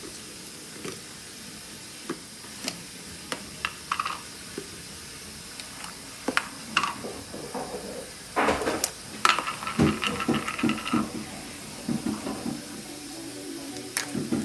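Slime being handled and squished by hand: scattered sticky clicks and small pops, growing into a busier run of wet squelching and crackling about eight seconds in.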